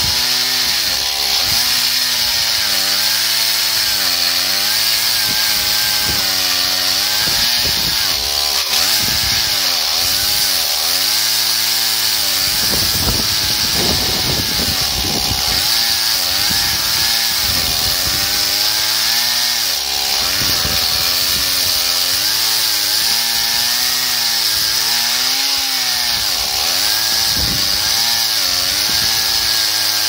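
Chainsaw on an Alaskan chainsaw mill ripping lengthwise through a wide ash log, running at full throttle under heavy load. Its engine pitch keeps sagging and recovering as the cut goes on.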